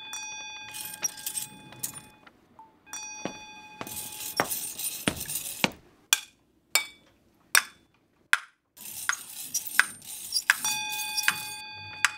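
Metallic clinking and jangling with scattered clicks and knocks, and a bell-like ringing tone that sounds at the start, again about three seconds in and again near the end.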